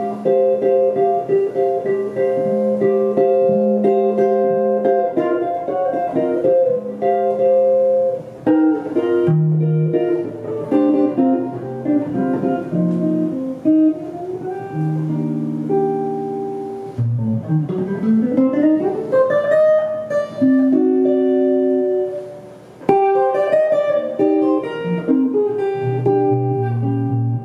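Solo Telecaster-style electric guitar through a small amplifier, played clean with chords and melody notes. About two-thirds of the way through there is a rising run of notes, and there are low bass notes near the end.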